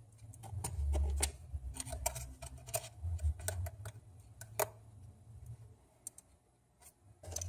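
Small, sharp clicks and taps of repair tools on an iPhone 6 Plus's internal parts and connectors, irregular and several a second, thinning out after about five seconds. A low rumble runs under the first part.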